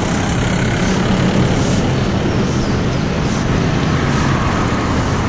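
Steady rushing road noise: traffic on a main road mixed with wind over the microphone of a camera on a moving bicycle.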